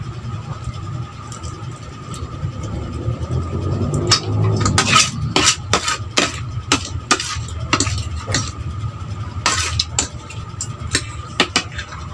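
Metal fork and spoon scraping and clinking against a plate, a run of sharp clinks from about four seconds in, over a faint steady hum.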